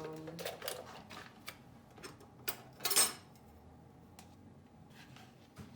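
Kitchen utensils and containers clinking and knocking as ingredients go into a blender jar, with one louder, brief rattle about three seconds in.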